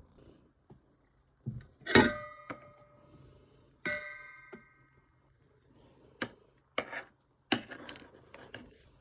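Dishes and utensils clattering: two loud, ringing clinks about two and four seconds in, then lighter knocks and rattling near the end.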